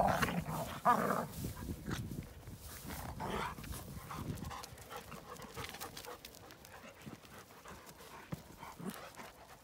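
Several dogs play-fighting: loud growling vocal noises in the first second or so and again briefly about three seconds in, then quieter panting and scuffling.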